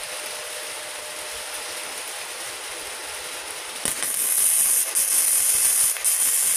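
Gasless flux-core MIG welding arc from a Multipro Expert MIG/MMA/TIG 160 AS-MZ inverter welder, struck about four seconds in and crackling loudly with two brief breaks as the trigger is released and pulled again.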